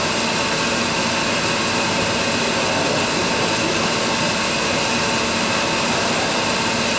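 Milling machine running steadily: an even hiss of noise with a faint steady whine over it.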